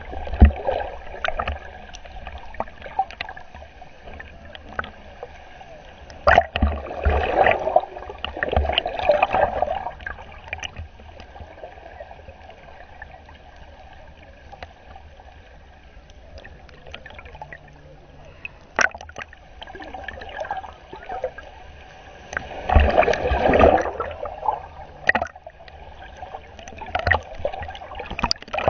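Water gurgling and sloshing around a submerged camera, muffled as heard under water, with two louder surges of churning water and a few sharp knocks.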